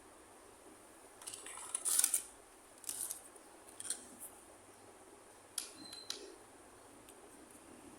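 Small plastic toy kitchen pieces being handled: a cluster of crinkly rustles and clicks about a second and a half in, the loudest part, then short clicks and taps about once a second.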